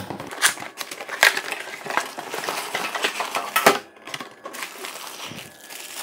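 Unboxing handling noise: a cardboard box being opened and plastic packaging crinkling and rustling, with a few sharp clicks.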